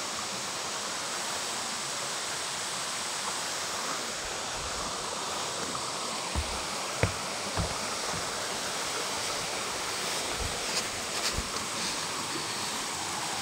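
Steady rush of flowing mountain water, a stream or falls running over rocks. A few soft low thumps come through in the middle stretch.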